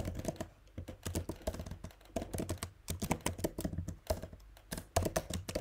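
Typing on a computer keyboard: quick, irregular key clicks, pausing briefly about four seconds in, as a sentence is typed into a document.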